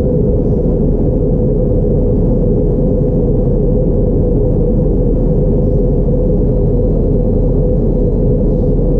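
Steady in-flight cabin noise of an Airbus A321neo at altitude, heard at a window seat over the wing: a loud, even drone of jet engine and airflow with a constant hum.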